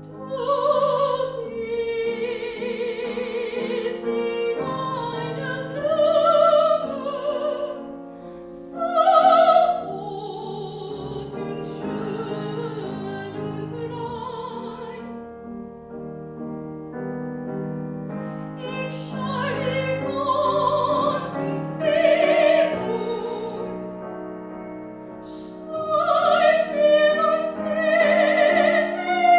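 Classical singing by a high female voice with wide vibrato, held notes rising and falling in a phrase, over piano accompaniment.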